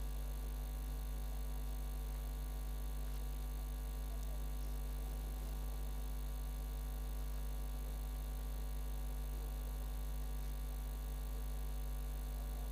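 A steady low hum with several steady higher tones above it, unchanging throughout.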